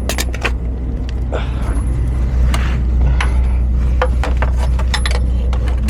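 Sharp metal tool clicks and rattles in irregular short runs as the OM642 V6 engine is turned over by hand with a wrench, over a steady low hum.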